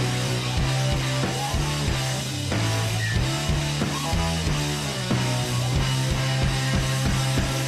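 Background rock music with guitar over a steady beat and a sustained bass line.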